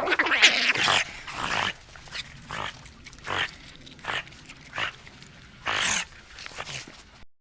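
Eurasian otter calling: a long harsh call, then a run of short, separate harsh calls spaced about half a second to a second apart.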